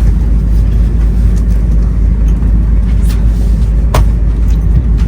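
Running noise inside an E2-1000 series Shinkansen car: a loud, steady low rumble, with two sharp clicks about three and four seconds in.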